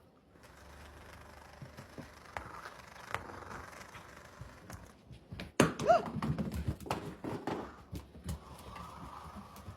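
Motorized crazy ball toy running and bumping on a hard floor, with scattered knocks and clicks. About five and a half seconds in comes a loud knock with a brief squeak, followed by a flurry of knocks.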